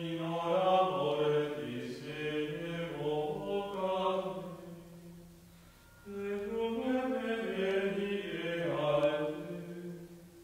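Liturgical chant sung slowly in two long phrases with held notes, with a short pause about halfway.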